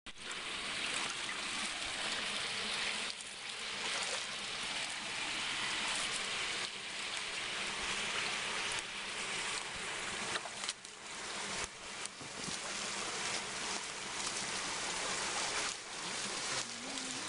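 Water of a small stream running steadily into a karst sinkhole, a continuous rushing hiss, with a few short knocks and rustles now and then.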